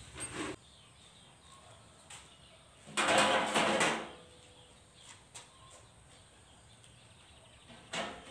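Cordless drill driving screws in short runs: one of about a second, three seconds in, and a brief one near the end, fastening a fender to the mini jeep's steel frame.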